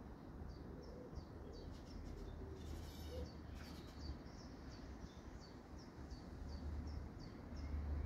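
A small garden bird calling in a quick, steady string of short, high chirps that slide downward, about three a second, over a low steady rumble.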